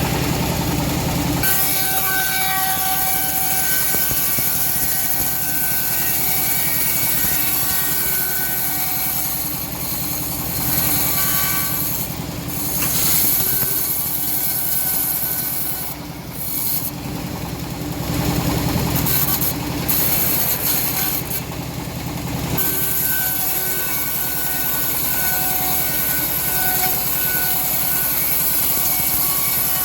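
Homemade bandsaw mill running and cutting through a hard teak log: a steady machine drone with a high hissing of the blade in the wood, changing in tone a couple of times as the cut goes on.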